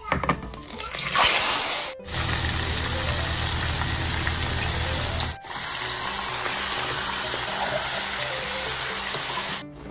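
Chicken livers and other meat sizzling in hot oil in a steel pot, a loud steady hiss that starts about a second in as the meat goes into the oil and cuts out briefly twice. Background music plays underneath.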